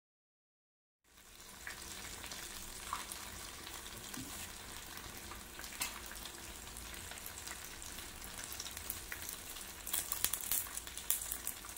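Masala-coated chicken pieces sizzling and crackling as they fry in a nonstick frying pan, starting about a second in, with the crackling getting busier near the end.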